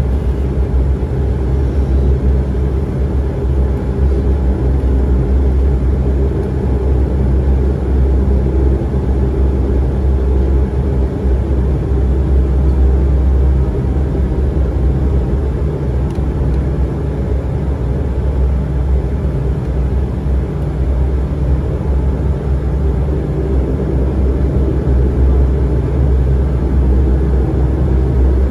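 Turboprop airliner's engines and propellers running steadily at taxi power, heard from inside the cabin as a low, even drone.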